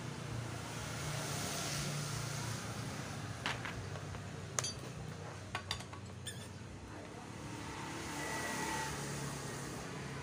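Metal hand tools clinking, a few sharp clinks about midway, as a socket wrench and extension are set on the engine's cylinder head. A steady background hum runs underneath.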